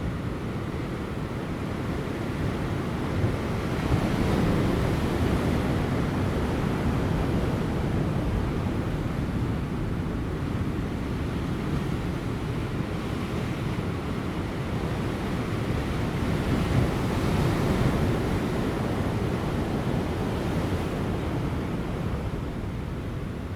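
Large ocean waves breaking on rocks, a continuous rushing surf that swells about four seconds in and again near seventeen seconds, with light wind.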